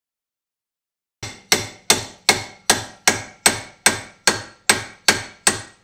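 Hammer blows on the steel front hub carrier of a Jaguar XJ, about a dozen sharp ringing strikes at roughly two and a half a second, starting about a second in. The blows are struck to shock the ball joint's taper loose from the hub.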